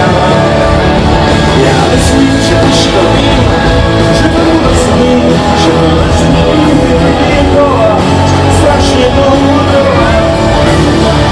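A rock band playing live and loud through a PA: electric guitars, keyboard and drums with a sung vocal, heard from among the audience.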